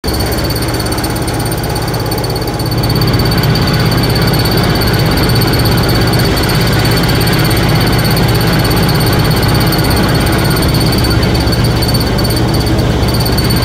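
Inclined vibrating screen running: a loud, steady mechanical drone from its motor-driven shaking steel body on coil springs, with a constant high whine above it. It gets slightly louder about three seconds in.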